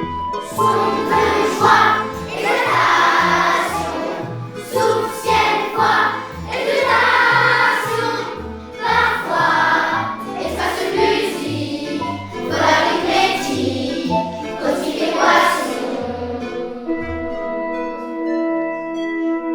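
Jazz ensemble with a group of voices singing together over a moving bass line, in phrases of about two seconds. Near the end the voices and bass stop, leaving steady held chords.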